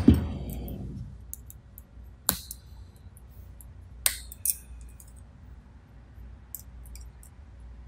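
A heavy thump at the start, then a few sharp metallic clicks and light ticks as an Allen key works against the metal parts of a pneumatic thread rolling attachment.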